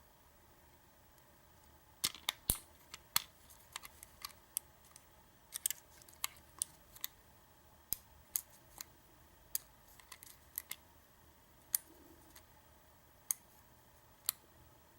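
Lock pick and tension wrench working the pin stack of a Schlage deadbolt cylinder during single-pin picking. Sharp, irregular metallic clicks start about two seconds in, some in quick clusters, as the pins are lifted and set.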